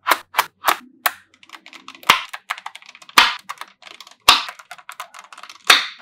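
Magnetic balls clicking and snapping together as slabs of them are pressed onto a panel of balls: a quick run of sharp clicks, about three a second, then a dense patter of small clicks broken by four loud snaps about a second apart.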